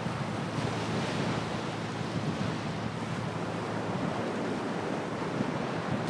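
Wind on the microphone over a steady wash of surf.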